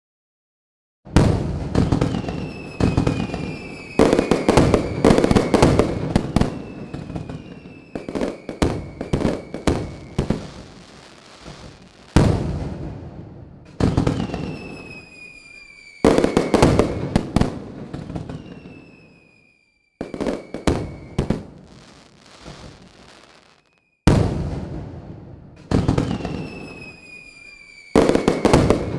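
Fireworks: clusters of sharp cracks and bangs with whistles falling in pitch. They start abruptly about every four seconds and die away between.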